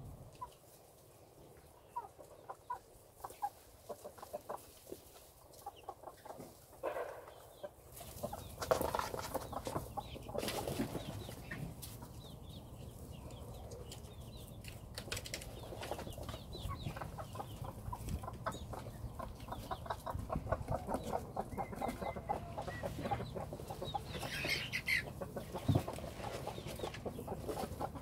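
Chickens clucking in short, repeated notes, sparse at first and more frequent and louder from about eight seconds in.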